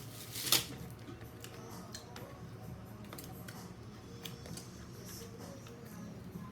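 Close-up eating sounds: one sharp click about half a second in, then soft scattered clicks and mouth noises.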